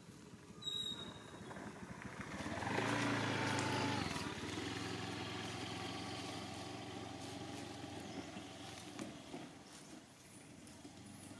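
A motor vehicle engine passing by: it grows louder about two and a half seconds in, is loudest for a second or so, drops in pitch, then fades away over the next several seconds.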